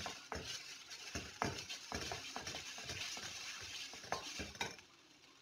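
Wooden spatula stirring and scraping sautéing onion and ginger-garlic paste around a metal kadai, with quick knocks against the pan over a soft sizzle. The stirring stops near the end.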